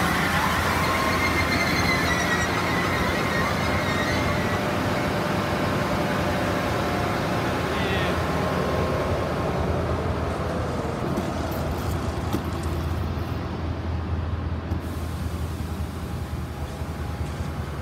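Passenger train cars rolling past close by, a steady noise of wheels on rails with thin high squeals in the first few seconds. The noise eases off over the last few seconds.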